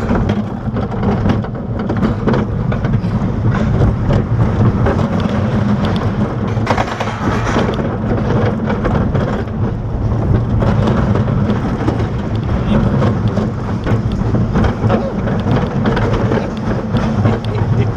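Wooden roller coaster train running at speed through its course: the wheels rumble steadily on the track, with heavy wind buffeting on the chest-mounted camera's microphone.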